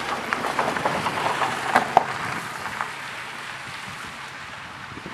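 A car's tyres rolling over wet gravel close by, crunching with many sharp pops of stones, loudest about two seconds in, then fading as the car drives away.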